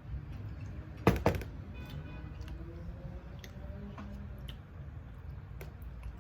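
Cutlery clinking sharply against a plate twice in quick succession about a second in, during a meal, over a low steady hum.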